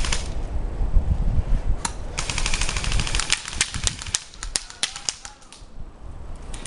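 Airsoft guns firing: a single shot, then a rapid burst of about a second, followed by scattered single shots that die away near the end.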